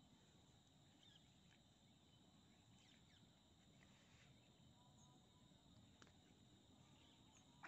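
Near silence: faint rural ambience with a steady high-pitched insect drone, a few faint bird chirps, and a sharp click at the very end.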